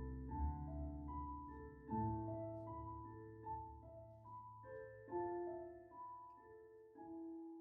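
Slow piano music: single notes picked out one after another over held low bass notes, the bass changing about every two and a half seconds.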